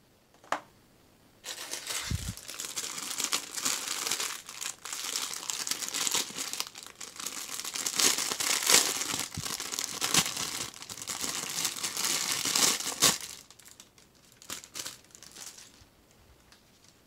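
Clear plastic bag crinkling continuously as gloved hands handle it with a coiled cable inside, for about eleven seconds, then stopping, with a few light rustles and ticks after. A single sharp click comes just before the crinkling starts.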